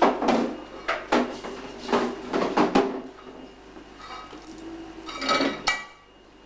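Dishes and cutlery clattering and knocking together in a kitchen sink as they are washed by hand. The clatter is quick and busy at first, then eases, and a clink rings briefly about five seconds in.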